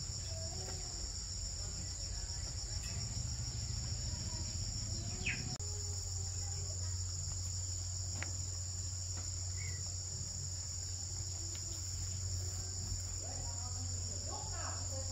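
Steady high-pitched chorus of night insects, a fast pulsing chirr, over a low steady hum.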